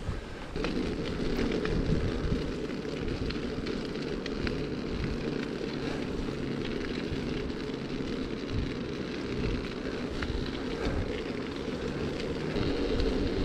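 A steady low rumbling noise.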